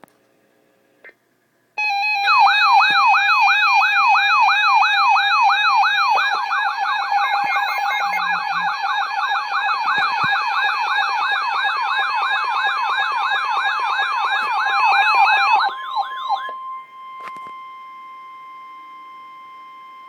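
Electronic emergency alert tone for a severe thunderstorm warning: a loud, fast siren-like warble of about three pitch sweeps a second. About fifteen seconds in the warble stops and a quieter steady tone holds to the end.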